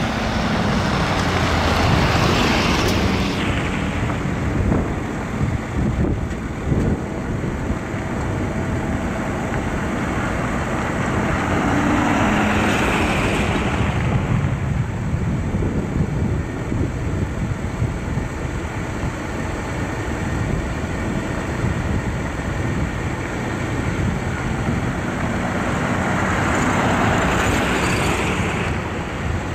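Pickup trucks carrying slide-in campers driving by on a gravel road: engines running and tyres crunching on loose gravel. The noise swells as a truck comes close, three times: about two seconds in, near the middle and near the end.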